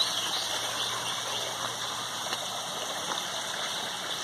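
Steady rush of water running over the rocks and gravel of a backyard pond's stream, with a few faint high chirps.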